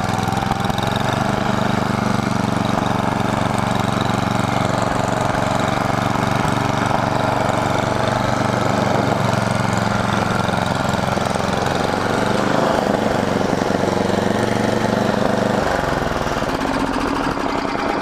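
Toro snowblower engine running steadily while clearing snow; the engine note shifts near the end.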